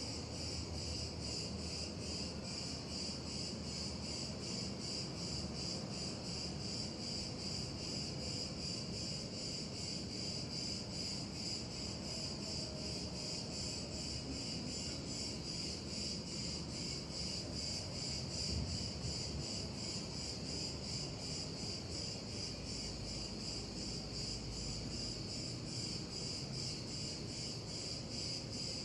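Steady high-pitched insect chirring that pulses evenly and runs on without a break.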